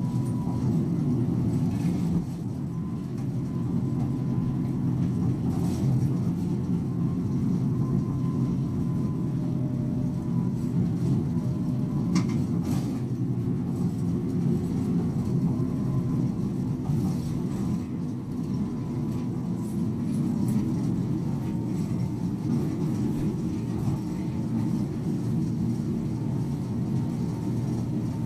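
Hino Poncho small route bus driving at a steady speed, heard from inside the cabin: a continuous low engine and road rumble, with a few faint clicks from the interior.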